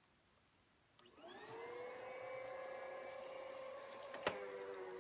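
Bissell vacuum cleaner motor switched on about a second in, spinning up with a rising whine that settles into a steady whine. A single sharp click near the end.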